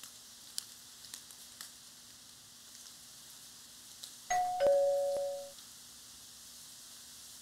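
Two-tone ding-dong door chime rung by its push button about four seconds in: a higher note, then a lower one, both ringing on for about a second.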